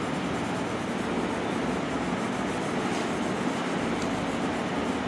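Tissue rubbing over drawing paper, blending pencil shading: a steady scrubbing hiss.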